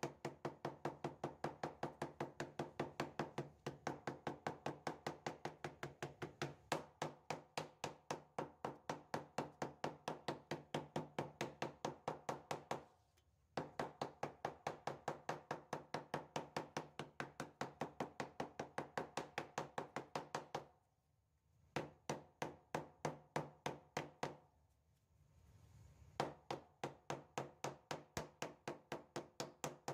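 Wooden mallet tapping on a leather flip-flop sole, about three light strikes a second, hammering the cemented leather layers together to set the bond. The tapping stops briefly about 13 seconds in and twice more after 20 seconds.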